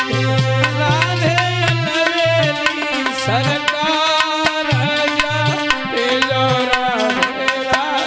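Instrumental passage of bhajan music: tabla playing quick, sharp strokes under a sustained melody with gliding notes.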